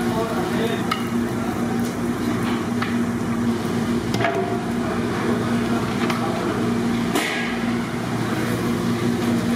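A steady low mechanical hum throughout, with a few short metallic clinks and scrapes of a perforated steel skimmer against large metal cooking pots as boiled meat pieces are lifted out.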